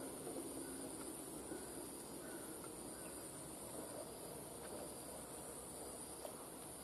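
Insects droning steadily in a high pitch, over a soft low background hiss of open-air ambience.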